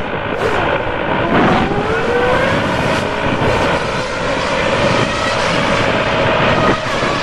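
Zetor 6340 tractor's four-cylinder diesel engine running steadily under load while pulling a corn planter across the field.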